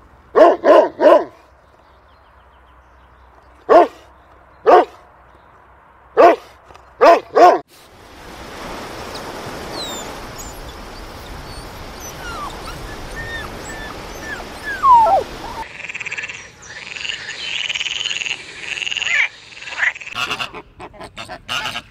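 A dog barks about eight times in short single and clustered barks. Then comes a steady rush of waves on a beach with a few faint bird chirps, and near the end a green pond frog croaking repeatedly with its vocal sacs puffed out.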